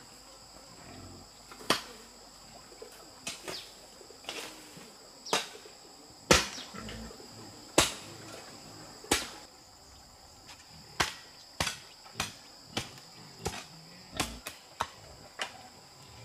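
Steady high drone of insects, with a run of sharp knocks over it, a few at a time at first and then coming regularly, about every half second to second, in the second half.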